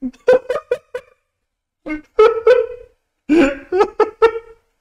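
A man laughing hard in three bouts of quick, high-pitched pulsing laughs, with short breaks between them.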